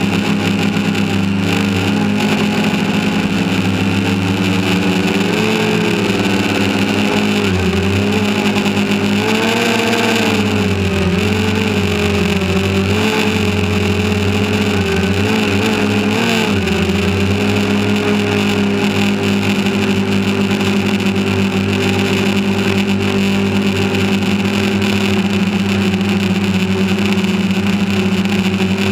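Quadcopter drone's electric motors and propellers running with a steady, loud hum, heard close up from the camera mounted on the drone. In the middle stretch the pitch rises and falls several times as the motors change speed, then holds steady again.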